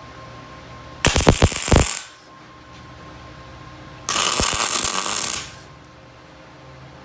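Two short bursts of MIG welding, about a second long each, sounding like crackling frying: tack welds being laid. The first starts about a second in and the second about four seconds in.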